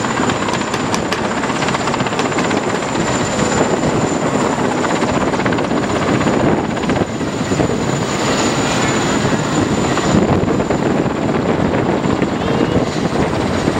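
Loud, steady whir and chop of a helicopter's rotor and engine.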